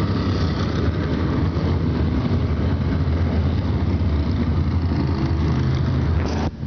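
USAC Silver Crown race car engines running as the cars circle the banked oval at slow speed, not yet ready for the green flag. The sound cuts out briefly near the end.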